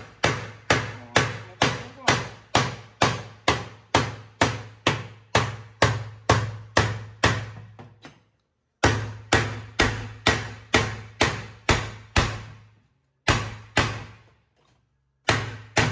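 Steady hammer blows on metal, about two to three a second, each with a short ringing tail, driving off the fifth-speed gear that is stuck tight on its shaft in a Nissan Kicks manual gearbox. The blows pause about eight seconds in, resume, then thin out to a few single strikes near the end.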